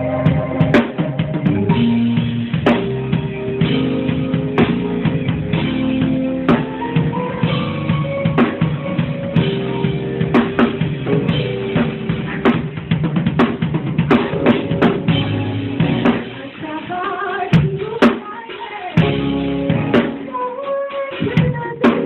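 A live band with a drum kit playing kick and snare hits over held keyboard notes, in a steady groove. Near the end the band twice drops briefly to a sparser, quieter break before coming back in.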